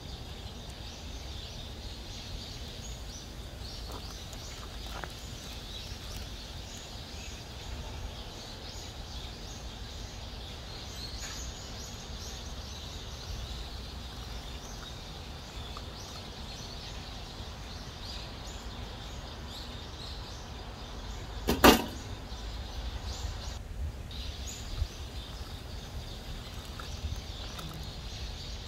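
Outdoor ambience: a steady low rumble with faint high-pitched chirping, broken by one sharp, loud knock about three quarters of the way through.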